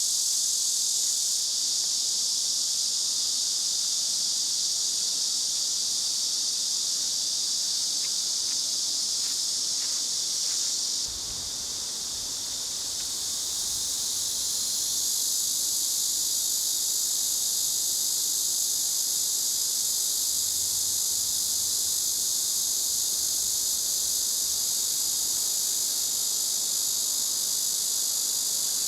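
A steady, high-pitched chorus of summer insects shrilling without a break. Its pitch and texture shift suddenly about eleven seconds in.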